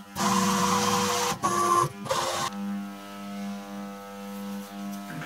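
1985 MAHO MH400E CNC milling machine running: loud, rough machine noise for about the first two and a half seconds, broken by two brief dips, then a steadier, quieter hum with a low pulsing tone.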